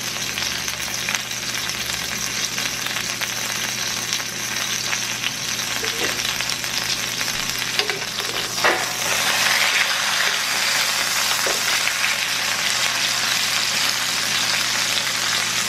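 Flour-dredged chicken breast frying in oil and butter in a stainless steel skillet, a steady sizzle. Metal tongs click and scrape against the pan a few times between about six and nine seconds in as the piece is turned over, and the sizzle is louder after it.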